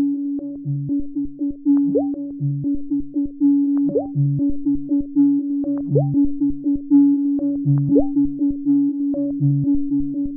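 Background electronic synthesizer music with a steady beat over a held note, and a short rising swoop about every two seconds.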